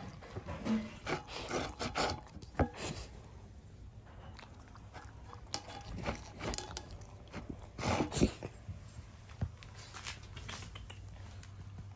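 A dog eating dog food from a stainless-steel bowl: irregular crunching, chewing and licking in bursts with short pauses, thinning out near the end.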